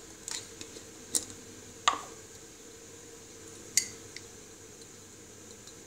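A metal teaspoon clinking and tapping against glass jars while instant coffee is spooned out: several short sharp clinks, the loudest about two seconds in with a brief ring.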